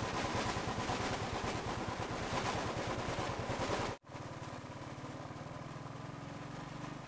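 Motorcycle engine running as the bike rides along a road, with an even, rapid low pulse under a noisy rush. About four seconds in the sound cuts abruptly to a quieter, steadier engine hum.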